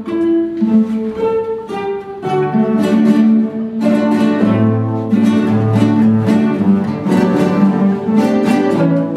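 Ensemble of nylon-string classical guitars playing keroncong-style music. A single plucked melody line is joined about two seconds in by the other guitars, adding bass notes and chords.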